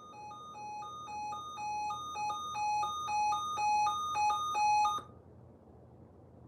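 Electronic alert tone beeping back and forth between two pitches, growing louder in steps, then cutting off abruptly about five seconds in.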